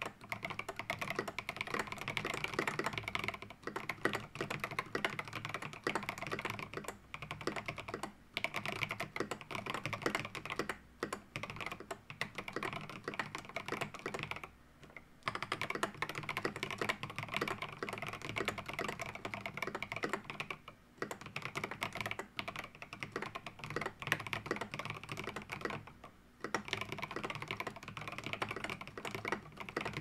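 Fast, continuous typing on a Rama Works Kara 60% mechanical keyboard with Alpaca V2 linear switches, SA-profile keycaps and a polycarbonate plate, a creamy-sounding keyboard. The typing stops a few times for a moment, longest for about a second halfway through.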